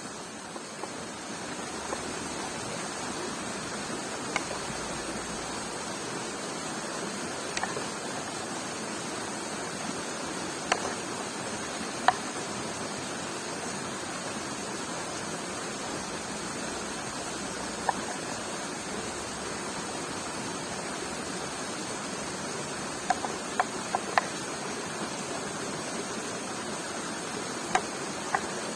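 Steady rushing of running water, with scattered sharp clicks or pops, several of them in a quick cluster about two-thirds of the way through.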